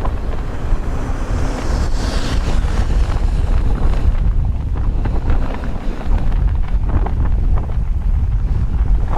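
Strong wind buffeting the microphone: a heavy, steady low rumble with a brief hiss about two seconds in.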